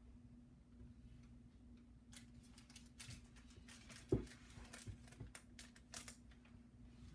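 Faint clicks and handling noises over a steady low hum, with one sharper thump about four seconds in.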